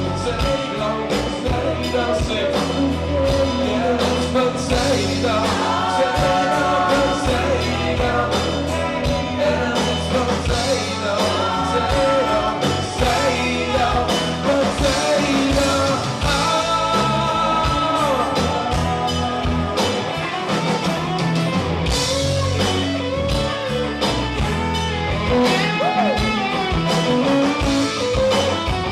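Rock band playing a song live: electric guitar, bass, drums and keyboards, loud and continuous.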